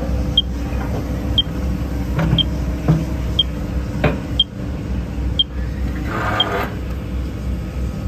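John Deere 75 P-Tier mid-size excavator running steadily as its hydraulics rotate and tilt an Engcon tiltrotator bucket, with a few sharp clicks and a brief hiss a little after six seconds. A short high beep repeats about once a second.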